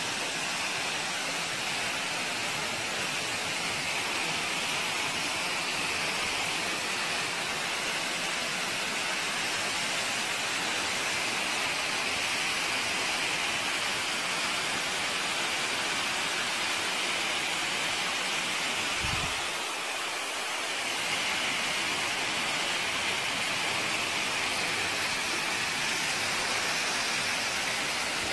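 Waterfall and the stream below it pouring over rock ledges into a pool: a steady rush of falling and running water.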